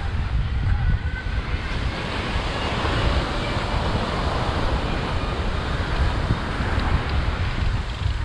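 Ocean surf breaking and washing up the beach, swelling through the middle, with wind rumbling on the microphone.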